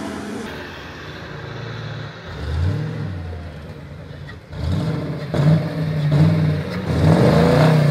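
A modified off-road 4x4's engine revving up and down in repeated throttle bursts as the truck works its way through deep mud. It is quieter at first and louder from about halfway on.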